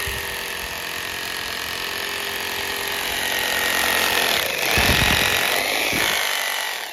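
An electric power tool running steadily with a high whine, getting somewhat louder about four seconds in and stopping abruptly at the very end.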